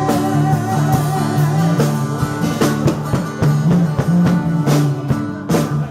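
Live band playing an instrumental passage of a pop-soul song without vocals: bass line and guitar over a steady drum-kit beat.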